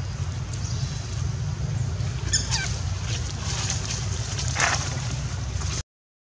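Steady low rumble of wind on the microphone outdoors, with a brief high sound sweeping downward about two and a half seconds in and a short burst a couple of seconds later. The sound cuts to silence just before the end.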